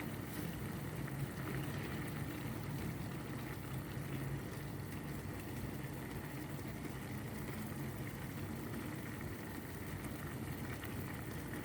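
Covered cooking pot of broccoli and shrimp boiling on the stove: a steady bubbling hiss with a faint low hum.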